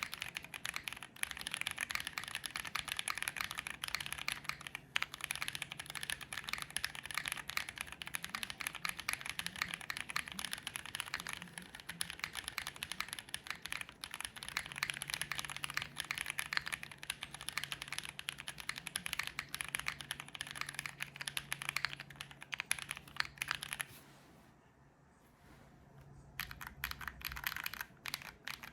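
Typing on a KBDFans Tiger80 mechanical keyboard with lubed Bolsa Supply Rosso Corsa tactile switches, a polycarbonate plate, no case foam, a two-layer tape mod and GMK Striker keycaps: continuous keystrokes, with a pause of about two seconds near the end.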